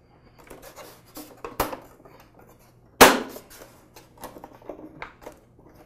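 Plastic side panel of an espresso maker being slid and pressed into place on its housing: scattered light clicks and taps, a sharp click about a second and a half in and a louder knock about three seconds in.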